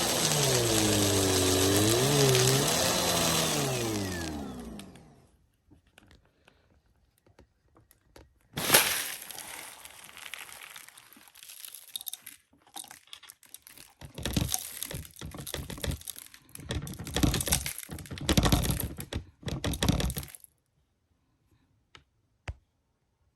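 Vacuum cleaner motor and brushroll running, its pitch dipping and rising, then switched off and winding down. After a short pause comes a sharp knock, then about twelve seconds of irregular clattering and rattling, like the machine being handled and loose debris shaken about.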